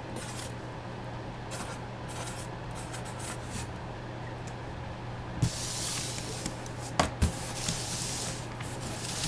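Rustling and crackling from handling packaging while opening a helmet box, getting louder about five and a half seconds in, with a few sharp knocks, over a steady low hum.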